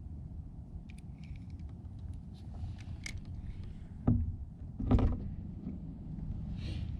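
Two knocks against a kayak, about four and five seconds in, with faint small clicks, over a steady low rumble.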